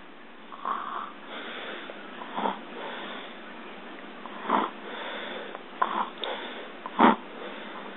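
Snoring: five rough, wheezy breaths spaced a second or two apart, the last one loudest.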